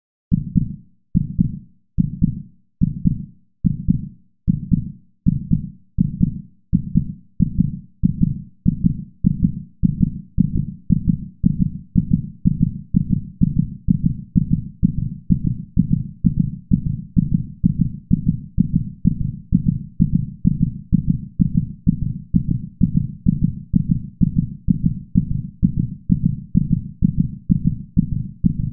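Heartbeat sound effect: low, muffled beats that speed up steadily, from about one and a half beats a second at the start to about two and a half beats a second near the end.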